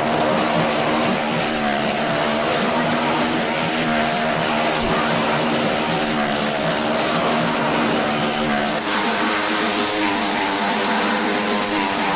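Motorcycle and small car engines running hard as they circle the wall of a well-of-death drum, a steady loud drone whose pitch wavers slightly. About three-quarters of the way through it turns brighter and harsher.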